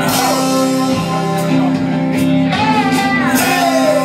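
Live band playing a song: amplified guitar and a singer, with held notes and a long falling glide near the end.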